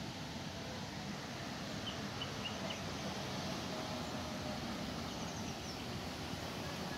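Steady outdoor rushing noise with faint bird chirps: a short run of four about two seconds in and a higher, quicker run about five seconds in.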